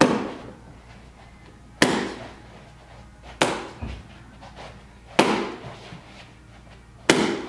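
Bare foot smacking a handheld taekwondo kick paddle with spin hook kicks: five sharp smacks about every second and three-quarters, each with a short echo.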